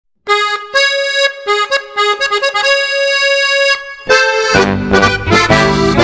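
Accordion playing a solo march intro, one melodic line of short notes. About four seconds in the full folk band comes in with a low bass line and a steady beat.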